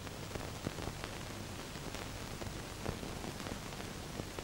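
Steady hiss of an old film soundtrack between lines, with a few faint clicks, two of them a little louder, about two thirds of a second and three seconds in.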